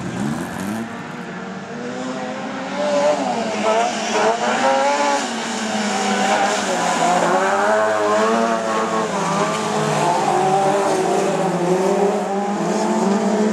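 Several stripped-down dirt-track racing cars running together, their engines revving up and down as they accelerate and lift through the corners, several engine notes overlapping. The engines get louder about three seconds in.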